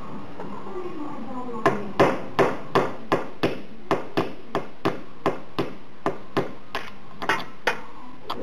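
Hammer tapping on metal: about eighteen sharp, ringing knocks at roughly three a second, starting about a second and a half in. The tapping drives the worn, loose bronze bushing out of the small DC motor's end plate.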